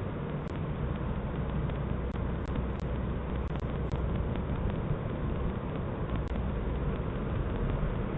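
Steady outdoor background noise, a low rumble with hiss over it, picked up by a Ring security camera's microphone, which cuts off the higher tones.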